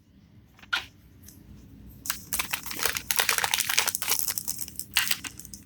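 Foil booster pack wrapper crinkling as it is handled, a dense run of crackles from about two seconds in until near the end, after a single click a little under a second in.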